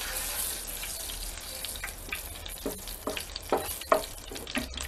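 Hot oil sizzling in a small enamel pan as dried chiles de árbol and a garlic clove fry, with scattered sharp crackles and a metal spoon stirring against the pan.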